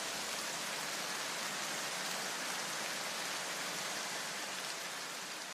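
A steady, even hiss across the whole range of pitch, with no tone or beat, fading a little near the end.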